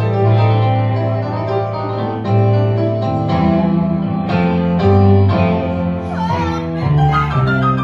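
Electric stage keyboard playing a piano sound: chords over a low bass line, one note change after another.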